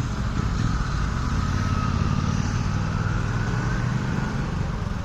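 A motor vehicle's engine running steadily: a low rumble with a faint, wavering whine above it.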